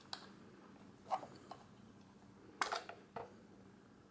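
Plastic clicks and snaps from opening the battery compartment lid in the pistol grip of a Revue Cine S/8 Super 8 camera: about five sharp clicks, the loudest about a second in and a double click at about two and a half seconds.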